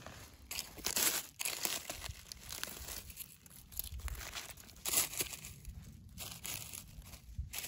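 Dry fallen leaves and twigs on the forest floor crackling and rustling in irregular bursts as they are brushed and trodden close to the microphone.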